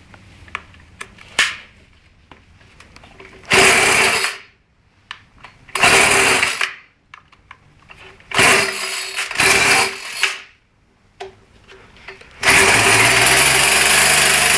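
Small two-stroke engine being pull-started: several short bursts of cranking and sputtering, then about twelve seconds in it catches and keeps running steadily. It had been flooded; with the oil-fouled spark plug cleaned and the cylinder cleared, it now starts.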